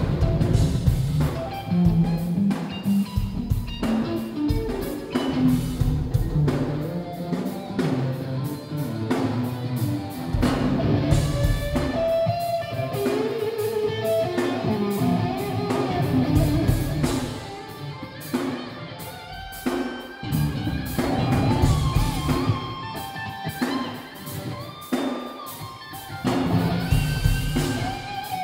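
Live instrumental rock band playing loud: an electric guitar carries gliding lead lines over bass and a drum kit. Heard through a smartphone's microphone, with a muffled tone.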